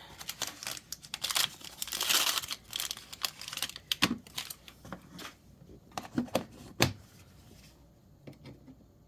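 Plastic packaging crinkling and tearing as a blind capsule is handled and unwrapped, dense for the first few seconds, then a few separate light knocks with quieter handling near the end.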